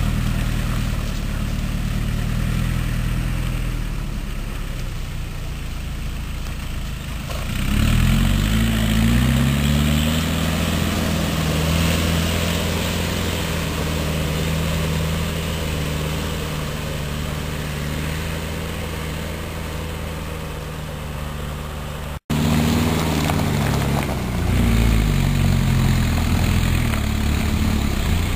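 Engine of an off-road 4x4 working through deep mud. It runs at low revs, revs up about a third of the way in and then slowly settles. After a short break it revs up again near the end.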